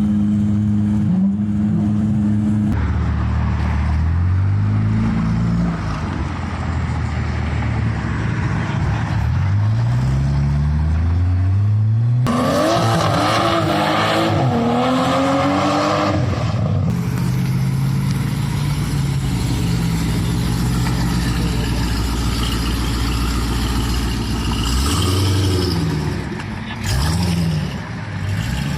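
Car engines revving again and again, the pitch climbing and dropping with each throttle blip. A louder, shrill stretch comes a little before halfway.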